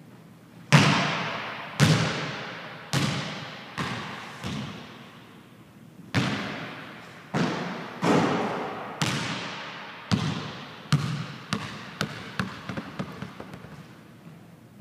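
A basketball bouncing on a hardwood gym floor, each bounce sharp and followed by a long echo through the empty hall. Near the end the bounces come quicker and softer as the ball runs out of bounce.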